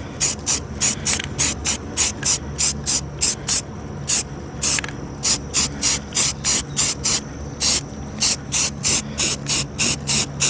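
Aerosol spray-paint can being shaken steadily, its mixing ball rattling in short, even strokes about three times a second.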